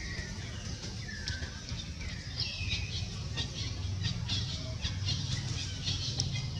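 Baby long-tailed macaque crying: short high-pitched cries that fall in pitch, several in the first three seconds, about one a second. A steady low rumble and scattered faint clicks run underneath.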